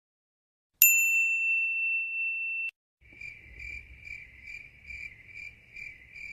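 A single bright ding that rings steadily for about two seconds and cuts off abruptly. Then a cricket sound effect: a high chirp pulsing about twice a second over a faint low background.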